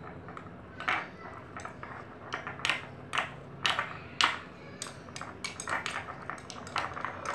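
Spoon stirring thick, clumping slime in a glass bowl, knocking and scraping against the glass in irregular clicks.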